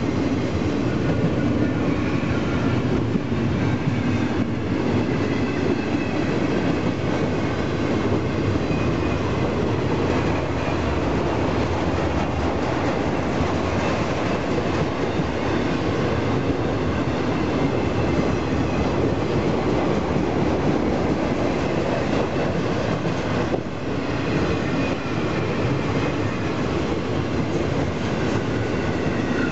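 Double-stack container and trailer cars of an intermodal freight train rolling past: a steady rumble of steel wheels on rail, with a faint high ringing above it.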